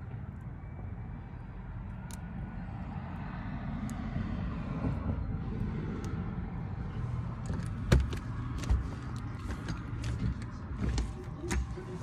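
Low rumble that swells and then eases off, with a sharp click about eight seconds in and several softer clicks near the end as the two bare doorbell wires are handled and touched together.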